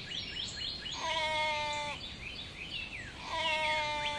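A sheep bleating twice, each bleat about a second long, with short rising bird chirps repeating in the background.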